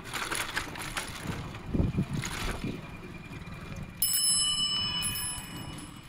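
Chrome handlebar bicycle bell rung with the thumb about two-thirds of the way in, a bright metallic ring that fades away over the next two seconds. Before it the bicycle rattles and knocks as it rolls over tram tracks.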